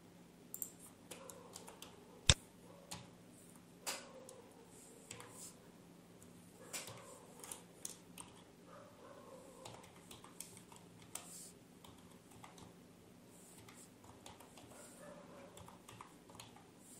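Typing on a computer keyboard: scattered, irregular keystrokes, with one much louder click about two seconds in.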